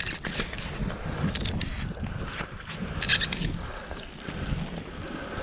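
Wind rumbling on the microphone, with a few short hissing bursts, the strongest about three seconds in.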